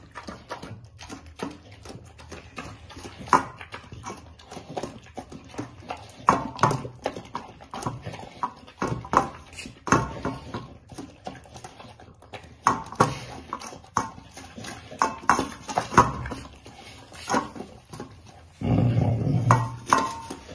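Rottweiler puppy eating a wet rice-and-vegetable mash from a stainless steel bowl: quick, irregular wet chewing and lapping clicks, several a second, with a louder stretch of about a second and a half near the end.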